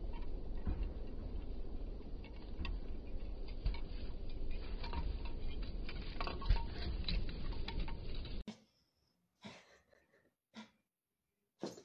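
Low wind rumble on the microphone with scattered light ticks and pattering while a small dachshund trots across grass trailing a rope leash. It cuts off abruptly about eight seconds in to near silence, broken by three short faint sounds.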